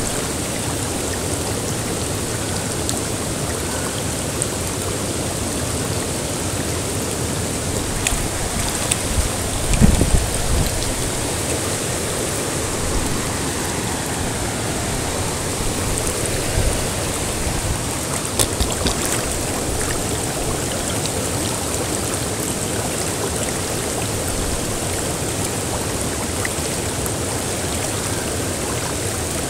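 Shallow, fast-flowing river rushing steadily over a stony bed, with a few low thumps about ten seconds in.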